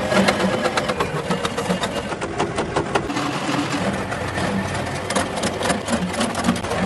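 Factory machinery running, with a rapid, irregular clatter of metallic clicks and knocks over a steady mechanical din.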